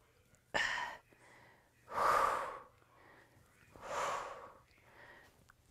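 A woman breathing hard with exertion while rowing dumbbells: three clear, breathy puffs about one every one and a half to two seconds, with a faint fourth near the end.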